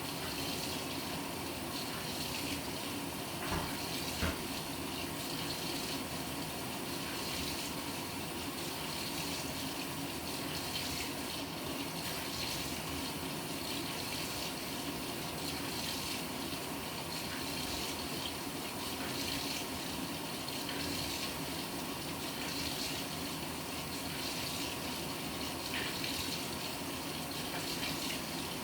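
Water running into the tub of a Panasonic NA-FA100H9 fully automatic washing machine as it fills, a steady splashing rush, with a couple of small knocks about four seconds in.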